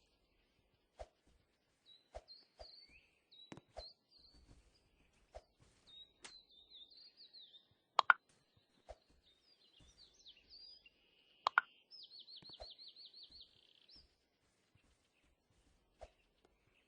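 Small birds chirping and singing, with a fast trill of repeated notes about 12 seconds in. Scattered sharp clicks or knocks come through, the two loudest about 8 and 11.5 seconds in.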